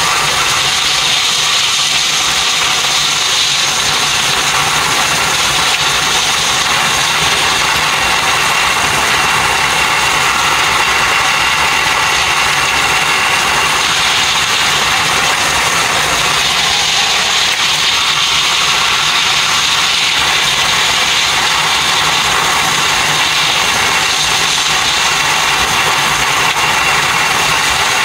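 Electric train running at speed, heard from inside the cab as a steady rushing noise of wheels on rails, sped up fourfold so that it sits high in pitch, like a hiss.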